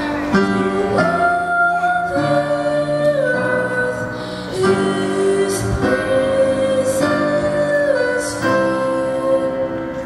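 A boy singing solo into a microphone with instrumental accompaniment, holding long notes between phrases.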